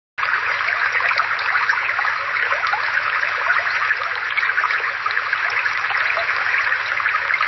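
Water of a small brook flowing and babbling steadily, a dense bubbling wash that starts suddenly just after the beginning.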